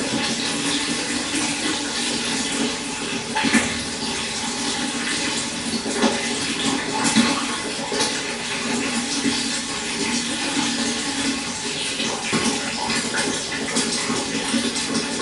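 Stream water running steadily over stones, with brief louder splashes now and then.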